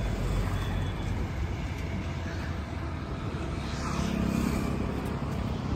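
Steady road-traffic rumble. About four seconds in, one vehicle's engine note rises over it briefly.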